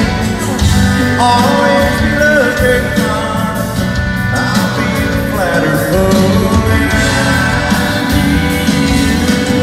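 Live country band playing, with a male lead singer's voice over electric guitars and drums, heard through the reverberant space of a large arena.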